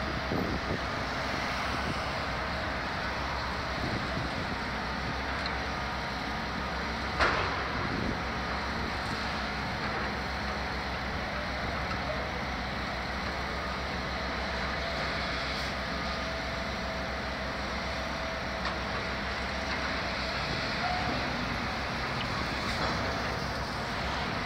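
Steady street traffic and heavy demolition machinery running, with one sharp bang about seven seconds in.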